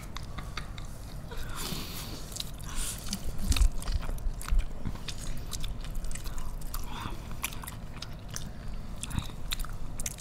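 Close-up biting and chewing of a crisp fried pastry, with many short crunches and mouth clicks throughout.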